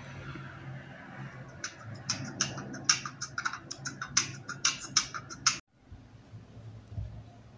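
A quick, irregular run of sharp clicks or scratches, about four or five a second, that starts about a second and a half in and cuts off suddenly.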